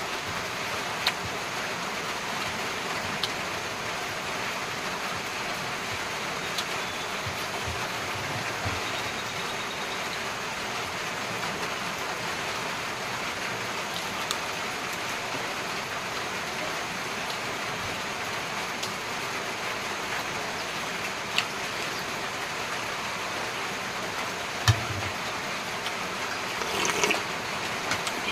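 A steady, even rushing noise throughout, with a few single sharp clicks from eating by hand. Near the end there is a short clatter of a metal spoon in a soup bowl.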